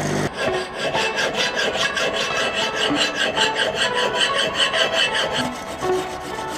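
Fast, even rasping strokes, about six a second, of abrasive rubbing on a rusty steel axe head as the rust is worked off. The strokes fade down near the end.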